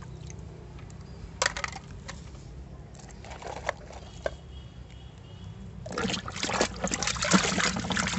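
A hand scrubbing a small plastic toy in a basin of muddy water, splashing and sloshing from about six seconds in. Before that it is fairly quiet, with one light knock about a second and a half in.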